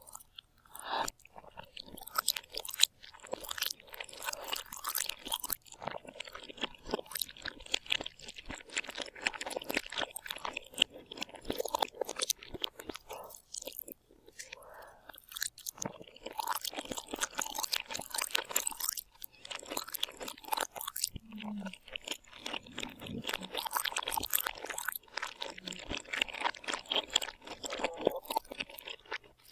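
A person chewing and crunching food, a dense irregular run of crisp crunches with a brief pause about halfway through.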